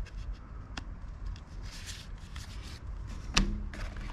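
Hands handling a cardboard box insert and paper leaflets: soft rustling and sliding, a faint click just under a second in, and a sharper knock about three and a half seconds in.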